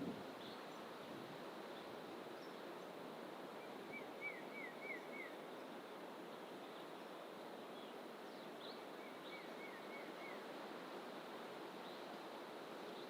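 Birds calling in thick bush over a steady background rush: one bird gives a quick run of about five short falling notes, twice, about four and nine seconds in, with a few faint high chirps scattered between.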